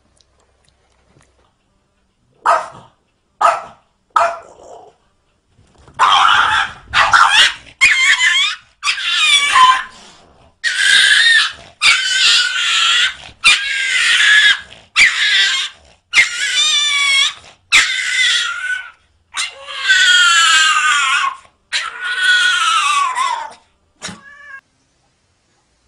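A small dog crying out over and over: three short yelps, then a long run of drawn-out, wavering cries that fall in pitch, ending near the end.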